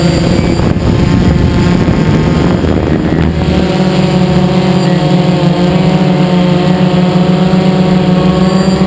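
Radio-controlled aircraft's motors and propellers running steadily, heard from the onboard camera. The pitch wavers and blurs for about three seconds after the start as the motors change speed, then holds steady.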